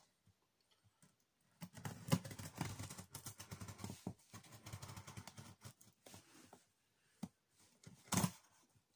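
A folding fisherman's jackknife slitting the packing tape on a cardboard box: a crackly scraping and tearing full of small clicks, starting about a second and a half in and lasting around four seconds, then a short louder rustle near the end.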